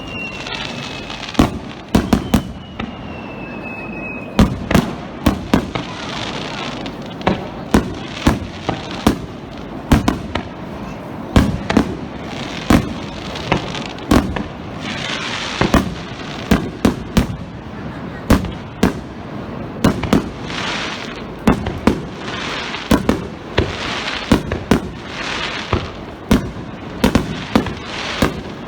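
Star mine fireworks barrage: a rapid, irregular series of sharp booms from bursting shells, several a second at times. Between the booms, a rushing high hiss swells several times. Twice in the first few seconds a whistle falls slowly in pitch.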